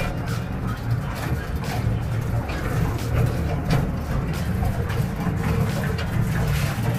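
Small open tourist train running along its track: a steady low rumble with frequent short clicks and knocks from the cars.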